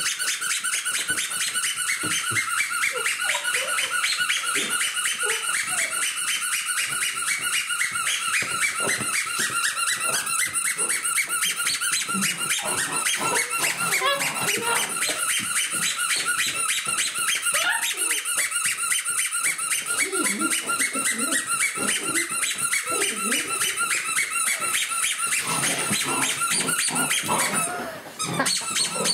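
A steady, rapid, high-pitched squeaking, several evenly spaced pulses a second, that stops briefly near the end. Beneath it, puppies growl and yap as they play-fight.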